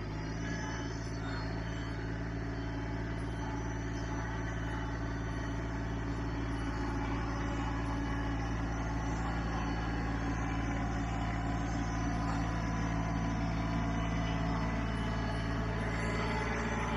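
LS MT125 sub-compact tractor's diesel engine running at a steady pitch as the tractor drives over snow, slowly growing louder as it approaches.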